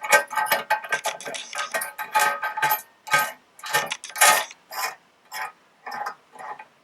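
Small metal parts clicking and clinking as the nut of a blind penetration seal fitting is hand-tightened onto its threaded adapter body against the washers. The clicks come thick and irregular at first, then thin out to one every half second or so.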